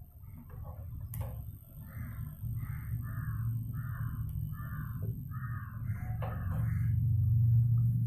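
A crow cawing about eight times in a row, over a low steady hum that grows louder near the end. A single sharp click about a second in.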